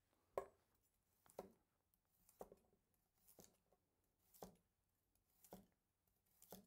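A long serrated slicing knife cutting through potato and striking the cutting board about once a second, each stroke short and light.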